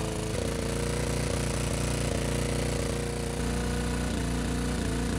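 Old John Deere lawnmower's small engine running steadily at full throttle, its throttle stuck wide open.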